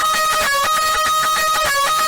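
Loud band music: a buzzy lead holds long notes over a dense wall of sound, stepping to a new pitch about half a second in and again near the end.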